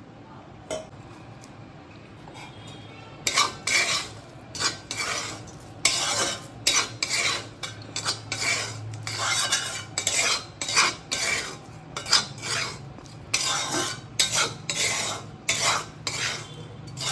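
A metal utensil scraping and clinking against cookware in repeated stirring strokes, about one to two a second, starting about three seconds in.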